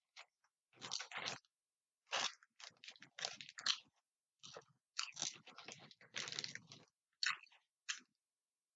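Close-miked chewing of food, with crunchy bites coming in irregular bursts and silent gaps between them.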